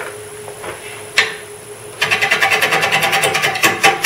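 Wood lathe turning slowly (about 295 RPM) with an out-of-round ash bowl blank. About two seconds in, a bowl gouge begins roughing the blank, striking the high spots once per revolution in an even knocking of about five strokes a second.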